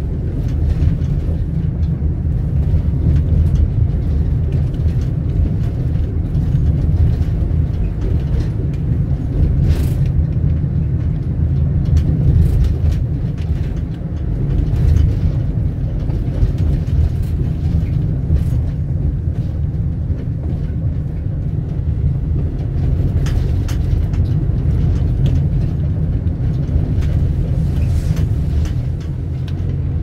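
Steady low rumble of a vehicle in motion, with faint scattered clicks and rattles.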